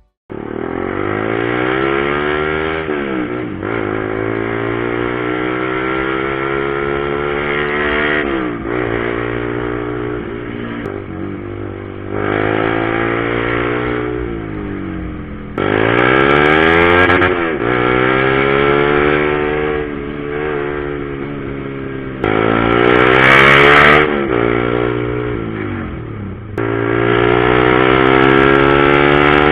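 Honda CBR150R's single-cylinder engine through a Proliner aftermarket exhaust, ridden through the gears. The pitch climbs as the bike accelerates, drops briefly at each gear change, and climbs again; several sudden throttle openings make it louder.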